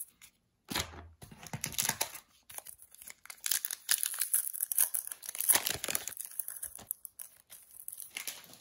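Foil wrapper of a Sorcery: Contested Realm Beta booster pack being torn open and crumpled by hand: a run of crackling rips and crinkles, loudest in the middle.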